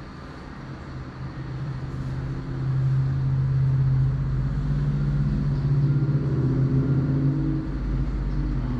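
A low, steady engine-like hum that swells over the first few seconds, then holds steady and loud.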